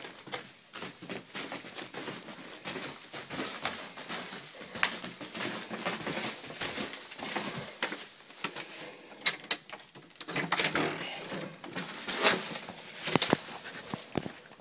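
A person and a dog moving through a house toward the back door: footsteps, rustling and scattered sharp clicks and knocks, coming thicker and louder in the last few seconds as the door is reached.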